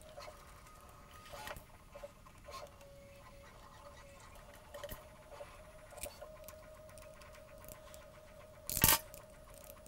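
Quiet, scattered small clicks and light rattles of hands working a hex key on screws in 3D-printed plastic robot-arm parts, with one louder clack near the end.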